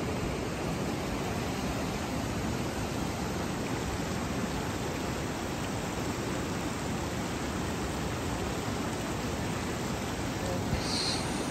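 Steady rush of fast-flowing shallow stream water, with a short high-pitched chirp near the end.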